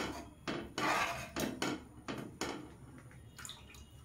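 Metal ladle stirring and scraping against the bottom of a metal pan of milk: a run of quick rasping strokes, weaker in the last second or so.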